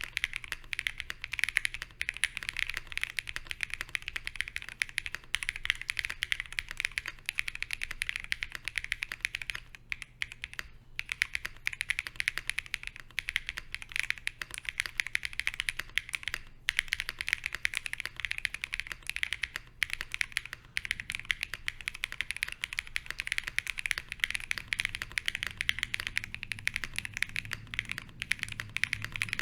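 Continuous fast typing on a Fox Lab Sunset 80 mechanical keyboard with lubed Zaku switches, a polycarbonate plate, PBT keycaps and case, plate and switch foam fitted. The keystrokes run as a dense clatter, with two brief pauses about a third and halfway through.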